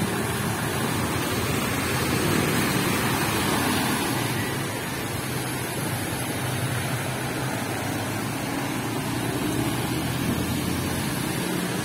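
Motorcycles and a small truck driving through floodwater on a street, their engines running under a steady rush and splash of water thrown up by the wheels.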